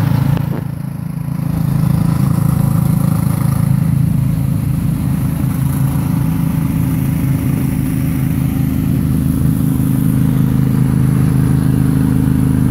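Several riding lawn mower engines running steadily as a procession of lawn tractors drives slowly past close by.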